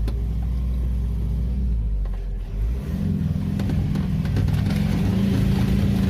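Motor vehicle engine running under load on rough ground, revving up and getting louder about three seconds in.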